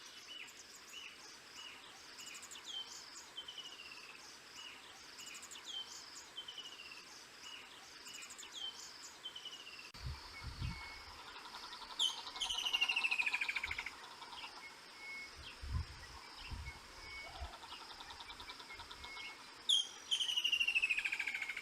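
Wild birds calling: a short falling whistle repeated every second or so, and twice a louder, longer falling trill, about 12 and 20 seconds in.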